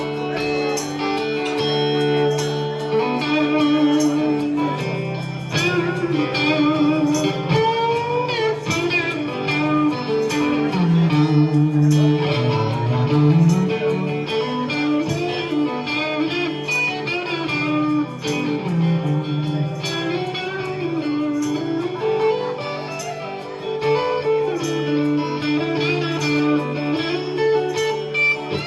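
Band playing an instrumental break of a Southern rock song: a bending electric guitar lead line over strummed guitar, bass and a steady drum beat.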